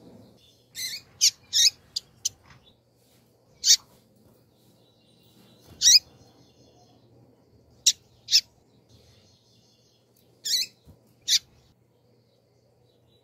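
Female double-collared seedeater (coleiro) calling. About eleven short, sharp, high chip notes, with a quick run of five in the first couple of seconds, then single calls and pairs a second or two apart.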